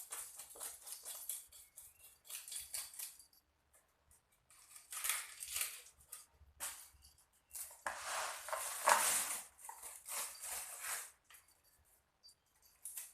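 Biawan fish (kissing gourami) being cleaned by hand: runs of short scraping and cutting strokes with brief pauses between them, the longest run about eight to eleven seconds in.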